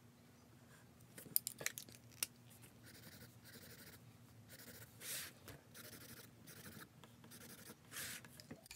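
Faint scratching of a pencil drawing on paper in short strokes, with a few sharp light clicks a little over a second in.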